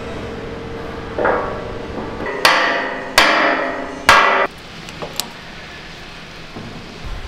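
A hammer drives a steel pivot pin into an excavator boom's hydraulic-cylinder mount: four metal-on-metal blows, the first softer, each followed by a short ring.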